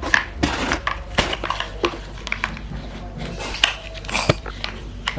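Plastic toy building blocks clicking and clattering as they are handled and fitted together, in quick, irregular small knocks.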